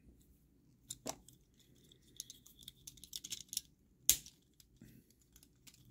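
Small hard-plastic toy parts of a Takara Tomy Job Braver figure clicking and ticking as they are handled and folded, with a run of light ticks and one sharper snap about four seconds in.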